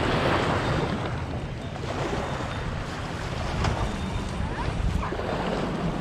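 Wind blowing across the microphone: a steady rushing noise.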